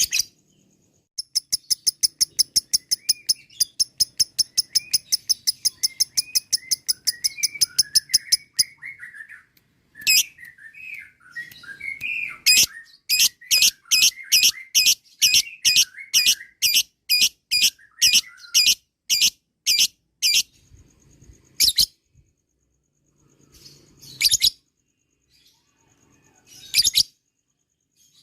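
Lovebird ngekek: a long, fast run of sharp, shrill repeated notes with softer twittering underneath, the excited long chatter that keepers use to provoke other lovebirds into calling. A second, slower series of repeated notes follows about halfway through, then a few single calls spaced out near the end.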